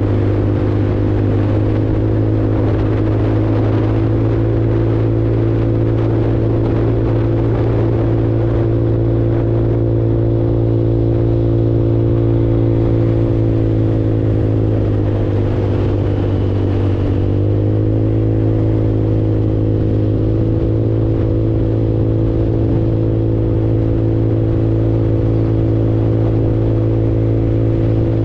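150cc Super Hornet automatic motorcycle engine running steadily at cruising speed. About fifteen seconds in its pitch drops as it eases off, then climbs back a couple of seconds later as it picks up speed again.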